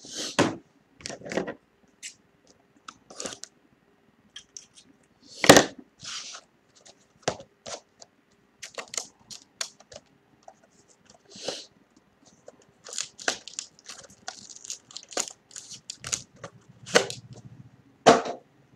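Packaging being torn open and crinkled by hand as a sealed trading-card box is opened: irregular sharp rips and crackles, the loudest about five and a half seconds in and again near the end.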